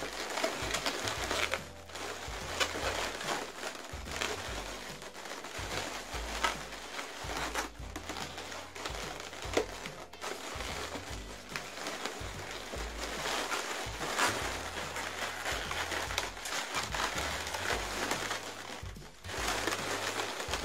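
Latex modelling balloons being handled and rubbed together, an irregular scratchy rustling and rubbing that runs on with a few brief pauses, as balloon flowers are pushed into a balloon basket.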